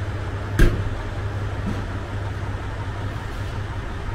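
Steady low hum of a diesel railcar idling, heard from on board, with one sharp knock a little over half a second in.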